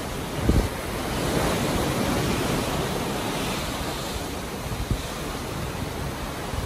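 Sea water rushing and breaking in a white wash along a moving ship's hull, with wind across the microphone. Two brief low thumps stand out, one about half a second in and one near five seconds.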